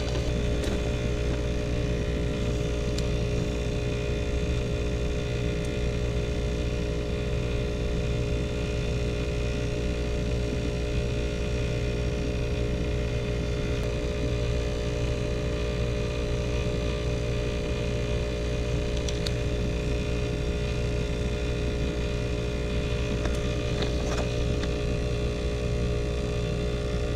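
ClimateMaster geothermal heat pump running steadily in heating: a constant mechanical hum with several steady tones, with no starts, stops or changes.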